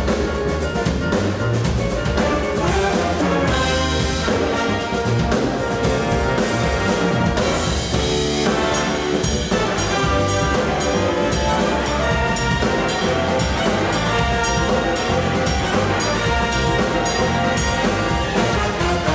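Jazz ensemble with a brass section of trumpets and trombones playing a funk-jazz tune over a steady, repeating bass line and drums.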